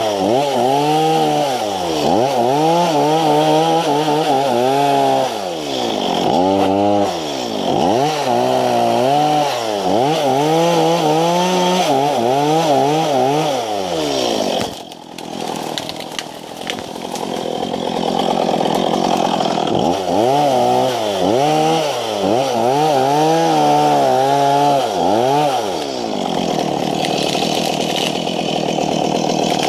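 Stihl chainsaw engine revving up and down over and over while cutting through brush and small stems, with a short dip in the engine about halfway through.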